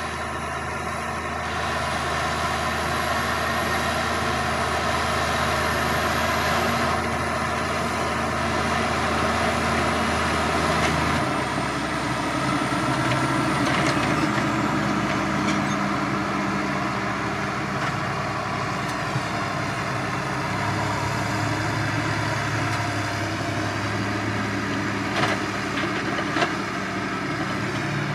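Same Diamond 265 tractor's six-cylinder diesel engine running steadily under load while pulling a Maschio Gabbiano HD 5000 rotary harrow through tilled soil. The engine note shifts about eleven seconds in, and two short knocks come near the end.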